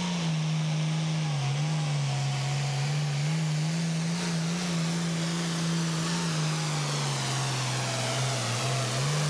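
Turbocharged International Harvester diesel super farm pulling tractor running hard under load as it pulls the sled. The engine note dips and recovers a couple of times, sags lower over the last few seconds, then picks up again near the end.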